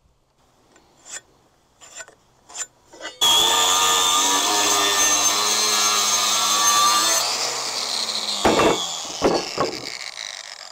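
Angle grinder cutting through a steel post-anchor bracket to split it in half: a few clicks, then the grinder starts suddenly about three seconds in and cuts loudly for about four seconds. A few sharp knocks follow near the nine-second mark while its whine fades and drops in pitch toward the end.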